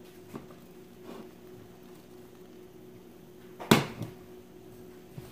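A metal frying pan knocking once, sharply, against the cooktop about three and a half seconds in, with a couple of light clicks before it, over a steady low hum.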